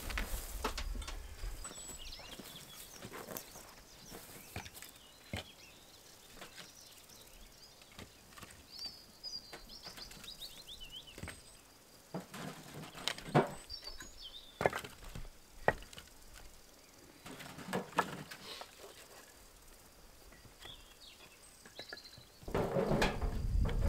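Scattered sharp knocks of wood being chopped, about a dozen spread unevenly, the loudest near the middle, with small birds chirping between them.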